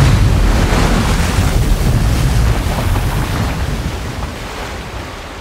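Wind buffeting the microphone over rushing sea water, a loud rumbling noise that fades away steadily toward the end.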